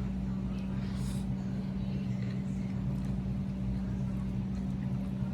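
A steady low hum, unchanging, with a faint brief hiss about a second in.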